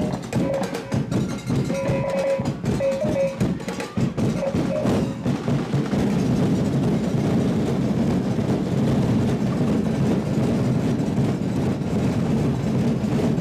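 Festival percussion ensemble of drums playing rapid, dense beats, with short pitched notes ringing over them for the first five seconds or so. After that the drumming runs on as a steady, continuous roll.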